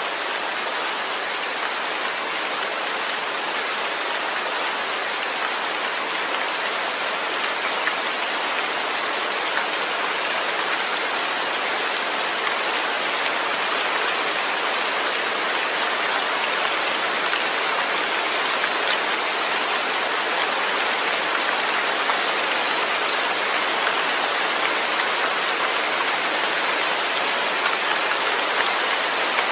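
Steady rain with no thunder: a dense, even hiss of falling drops that grows slightly louder over the span.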